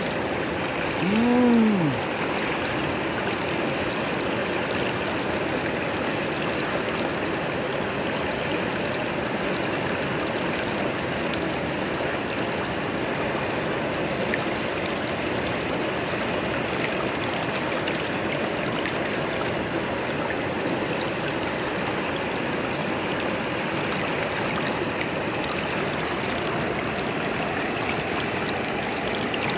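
Shallow river water flowing steadily, a constant even rush. About a second and a half in, a person gives one short hummed voice sound that rises and falls in pitch.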